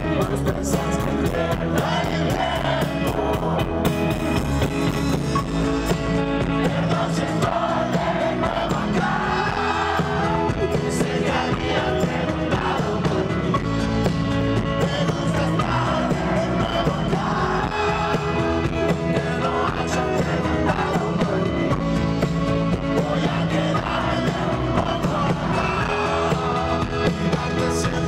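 A live rock band playing: electric guitars, bass and drum kit, with a voice singing over them in several stretches.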